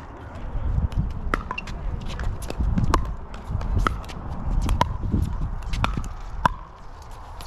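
Pickleball doubles rally: paddles striking the hollow plastic ball in about six sharp, ringing pops, roughly one a second, over a low background rumble.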